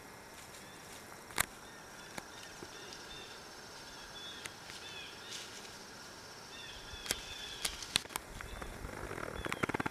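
Woodland ambience: small birds chirping faintly, broken by a few sharp clicks, and near the end a rapid buzzing rattle starts and grows louder.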